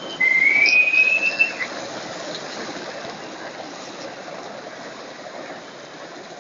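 Many skateboards rolling together over street asphalt, their wheels making a steady rumbling hiss. A high squeal rises and holds for about a second and a half near the start.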